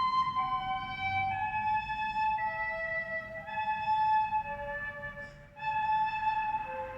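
Music: a slow melody of long, clear held notes, each about a second long and stepping to a new pitch, with a short break about five and a half seconds in.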